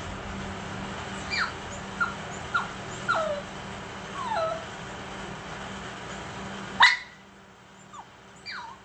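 Shih Tzu whimpering: a string of short, high whines, each sliding down in pitch, about one every half second to second. Near the end a sharp click cuts in, and two fainter whines follow over a quieter background.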